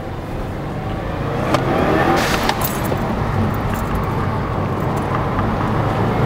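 Subaru WRX turbocharged flat-four being restarted with the key after stalling, catching about two seconds in and then running, with the key ring jangling against the steering column. The stalling is blamed on a cheap eBay blow-off valve venting too much.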